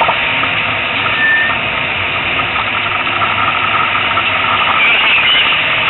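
Competition car's engine running, heard from inside the roll-caged cabin as a loud, steady din of engine and road noise.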